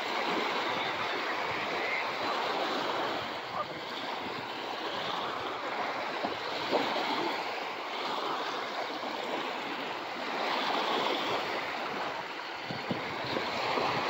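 Small waves washing and lapping onto a sandy beach, a steady rushing wash that swells and eases.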